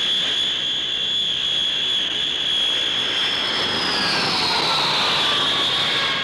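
Handley Page Herald's twin Rolls-Royce Dart turboprops running with a steady high whine over a rushing noise. From about the middle the whine slides down in pitch as the aircraft flies past.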